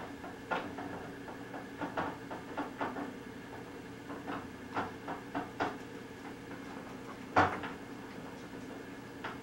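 Scattered light plastic clicks and knocks from the toys on a baby walker's tray being handled, with one louder knock about seven seconds in, over a steady hum.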